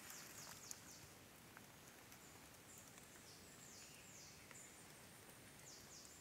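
Quiet forest ambience with a bird's high, thin calls, each a quick falling note, repeated several times, and a few faint clicks.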